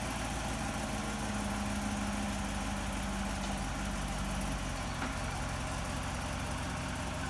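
C6 Corvette's V8 engine idling steadily.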